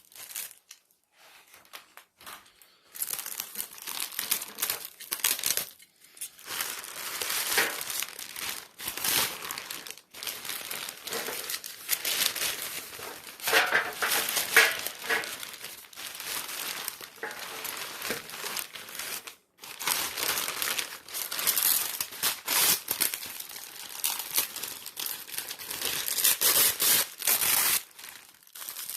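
Plastic garbage bag crinkling and rustling as it is pulled open and handled, in irregular bursts with a short lull near the start and another about two-thirds through.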